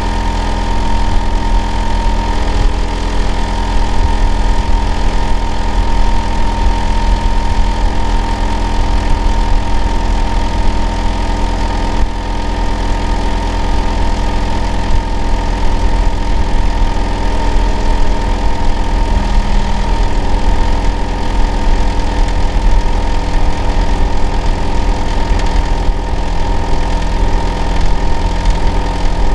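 Hitachi air-conditioner outdoor unit running in heating mode: a loud, steady low hum with a whine on top, with a slight shift in pitch about twenty seconds in.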